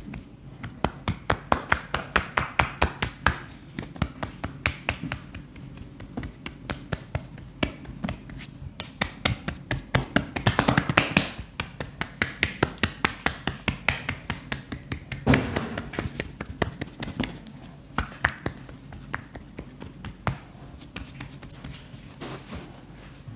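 Hands striking the body in quick rhythmic taps and slaps, percussive massage strokes, in runs of about four a second with short pauses between runs.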